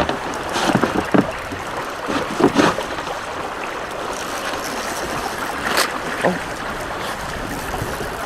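River water running steadily around a boat, with several sudden thumps against the hull scattered through the first few seconds and one more past the middle.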